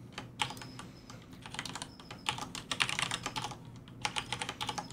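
Computer keyboard being typed on, keys clicking in quick runs with short pauses between.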